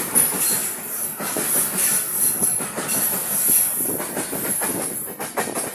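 Long freight train of hopper wagons rolling past close by, wheels clacking rapidly over rail joints under a steady high hiss of steel wheels on rail. The brake van at the tail goes by near the end and the noise begins to fall away.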